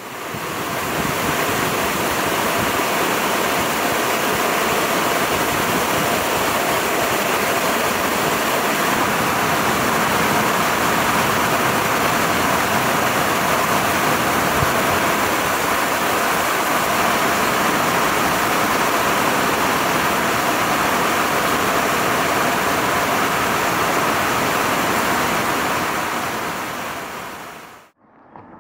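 Steady, loud rushing noise without any tone or rhythm, fading in at the start and cutting off suddenly near the end.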